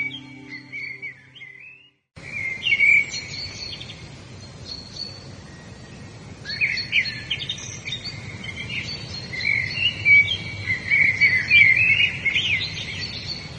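Songbirds singing: quick chirps and trills from several birds, over a faint steady outdoor background. Soft instrumental music plays under the birds for the first two seconds, then cuts out, leaving the birdsong alone.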